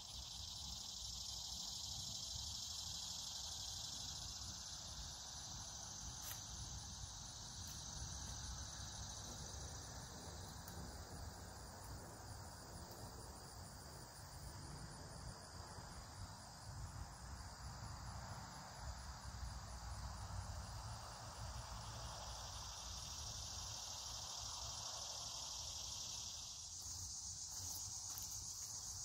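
A steady, high-pitched trill of insects, typical of crickets or katydids. It fades somewhat about a third of the way in and grows stronger again about three quarters of the way through.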